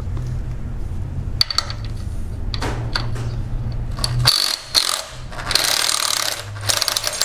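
Cordless impact driver hammering on a reverse-threaded 16 mm idler pulley bolt in short rattling bursts through the last three seconds, spinning it loose. Before that, a steady low hum and a few clicks as the socket is fitted onto the bolt.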